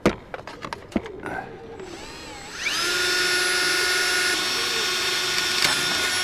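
Electric drill spinning up with a rising whine, then running at steady speed for about three and a half seconds before stopping. A couple of sharp knocks come before it, near the start and about a second in.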